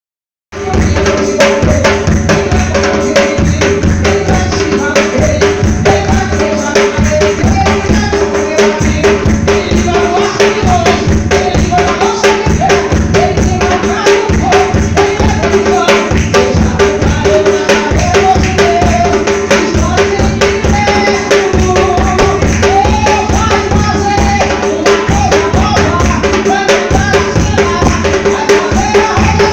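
Song played with timbal and marcação bass drum beating a busy, steady rhythm under a melody; it starts abruptly about half a second in.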